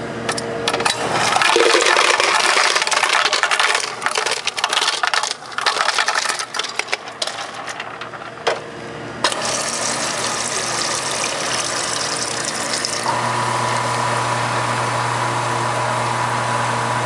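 Ice cubes tumbling out of a soda-fountain ice dispenser into a plastic cup in a long, rattling clatter for about eight seconds. From about nine seconds in, the fountain nozzle pours Mountain Dew into the cup in a steady rush, and a steady hum joins about thirteen seconds in.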